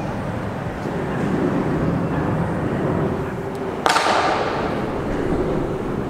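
Steady rumble and hiss of highway traffic crossing a steel arch bridge overhead. About four seconds in, a sudden sharp crack, followed by a hiss that fades.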